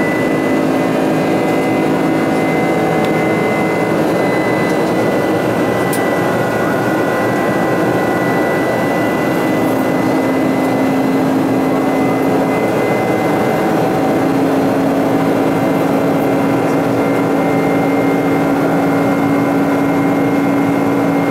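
Inside the cabin of a Boeing 747-400 in flight: the steady noise of its General Electric CF6 turbofan engines, with a high steady whine and a lower hum over an even rushing sound.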